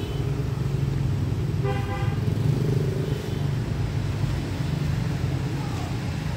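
A vehicle horn toots briefly about two seconds in, with a fainter toot a second later, over a steady low rumble of traffic.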